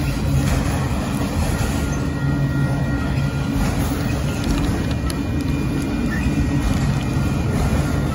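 Freight train of autorack cars rolling past: a steady rumble of steel wheels on the rails.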